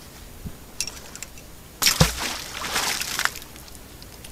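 A few light clicks, then a sudden splash in the water about two seconds in, followed by about a second and a half of sloshing and dripping as a fishing magnet on its rope hits the water.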